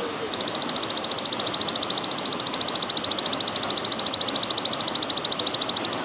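Belalang emas ('golden grasshopper') insect calling: one long, high-pitched trill of rapid, even pulses that starts suddenly and cuts off near the end. Trickling water runs steadily underneath.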